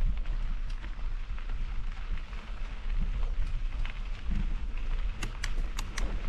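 Mountain bike riding on a dirt trail: wind rumbles on the microphone while the tyres crackle over the dirt. About five seconds in comes a quick run of about five sharp clicks.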